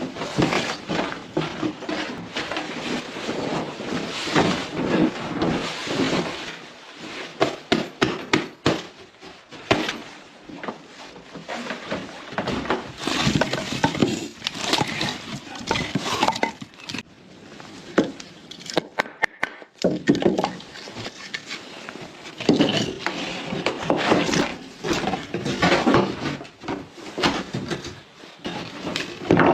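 Wood being handled and broken: a long run of sharp wooden knocks, cracks and clatter in clusters, with short pauses between.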